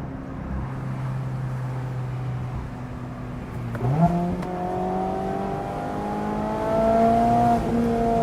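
2024 Mazda MX-5 Miata's four-cylinder engine heard through an aftermarket exhaust with the top down: running steadily, then the revs jump sharply about halfway through and climb as the car accelerates, with a brief break near the end for a gear change.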